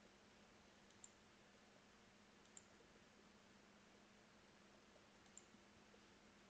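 Near silence with three faint computer-mouse clicks, about one, two and a half and five and a half seconds in, as edges are picked one by one. A faint steady hiss and low hum sit underneath.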